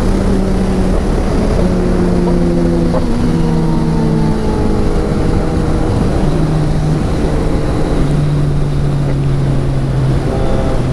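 Motorcycle engine running while riding, its note holding steady and then stepping down in pitch every second or two, under a heavy rush of wind noise on the microphone.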